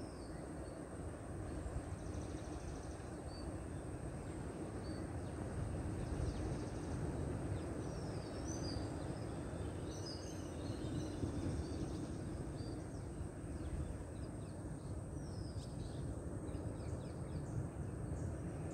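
Outdoor background rumble with small birds chirping now and then, busiest around the middle, over a faint steady high tone.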